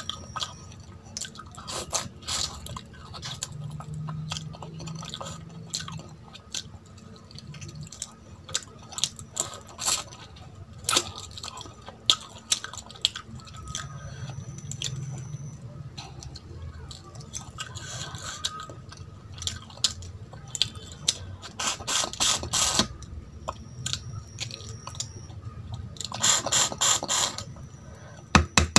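Close-miked eating sounds: chewing and wet mouth clicks, with the squish of a hand mixing rice and curry gravy on a steel plate. Short clicks come throughout, in denser runs about two-thirds of the way through and again near the end.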